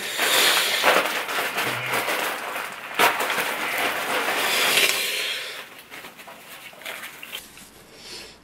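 A person breathing hard and hissing air through an open mouth against the burn of an extremely hot chilli chip, with a few sharper breaths; it dies down after about five seconds.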